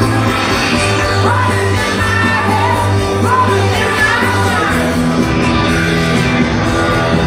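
Live rock band playing through the stage sound system, with a sung lead vocal over steady bass and guitars, heard from within the crowd.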